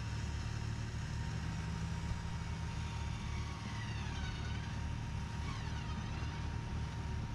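Pickup truck engines running steadily at low revs, a low rumble, as a stuck Ram 1500 is pulled slowly out of snow on a recovery rope. A few faint swooping squeals come about halfway through.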